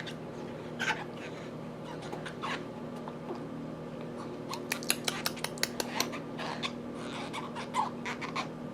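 Small plastic clicks and scrapes of a toddler chewing on a sippy cup's spout, coming thick and fast about halfway through, over a steady low hum.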